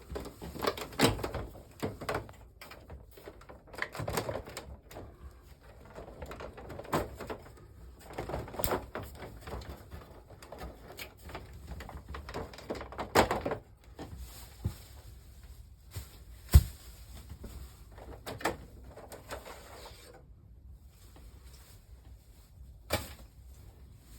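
Irregular plastic clicks, knocks and rustling of a wall-mounted air conditioner's covers and parts being handled and unclipped, with one sharp knock about two-thirds of the way through.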